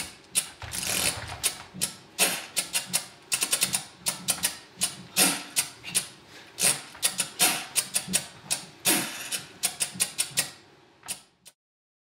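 Tap dancing: a fast, rhythmic run of sharp taps on the stage floor with a few heavier, noisier hits mixed in. It stops suddenly near the end.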